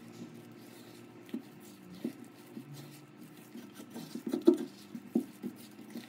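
Silicone spatula stirring and folding thick mashed-potato-and-flour dough in a glass bowl: soft irregular squishing and scraping with light knocks against the glass, the loudest about four and a half seconds in.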